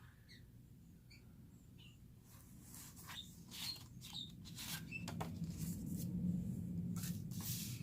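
Light handling noises of package contents being moved: scattered small clicks and soft rustles, starting about two seconds in.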